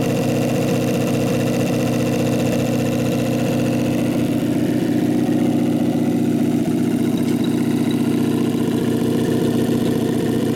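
John Deere V4 pony engine, the small starting engine of a John Deere diesel tractor, running steadily at an even speed.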